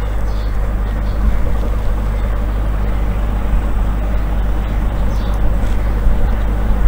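Steady background hum and hiss with no distinct events: a constant low hum under an even noise.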